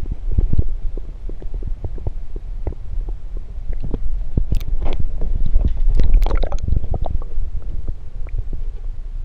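Water heard through a submerged camera: a muffled, low rumbling and sloshing with many small knocks, and a cluster of sharper clicks around the middle.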